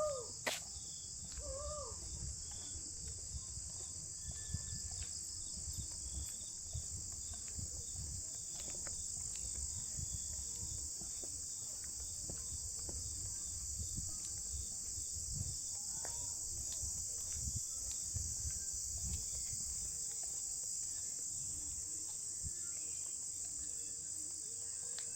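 Steady, unbroken high-pitched chorus of insects, crickets or cicadas. Irregular low thumps and rumble run underneath.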